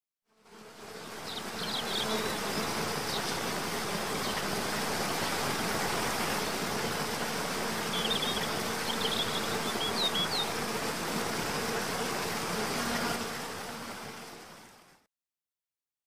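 Waterfall water rushing in a steady, even roar. It fades in just after the start and fades out about a second before the end. A few short high chirps come through early on and again around the middle.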